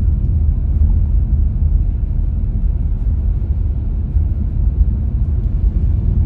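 Steady low rumble of an MG Hector SUV on the move: road and wind noise, with no clear engine note above it.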